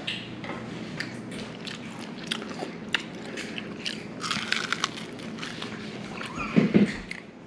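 Close-up biting and chewing of golden fried fish, with many small crisp crunches and a denser burst of crunching about four seconds in. A brief, louder low sound comes near the end.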